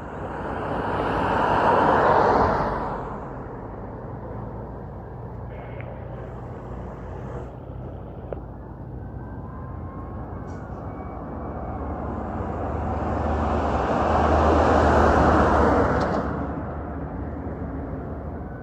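Road vehicles passing by twice, each a rising and fading swell of engine and tyre noise, about two seconds in and again around fifteen seconds in; the second has a deep engine rumble, like a heavy truck.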